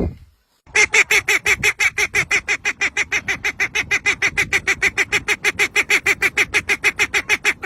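A bird calling in a long, fast, even series of harsh honking notes, about six a second, starting just under a second in.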